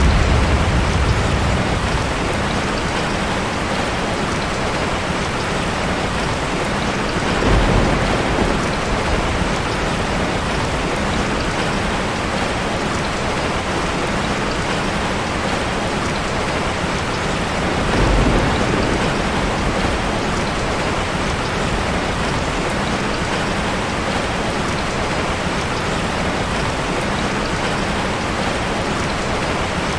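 Steady, heavy rain falling, an even hiss. Two brief low rumbles swell up, about a quarter of the way in and again a little past the middle.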